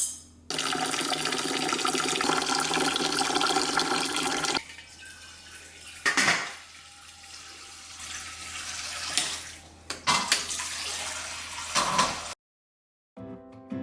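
Kitchen tap running for about four seconds and then shut off, followed by quieter handling sounds with a few short knocks.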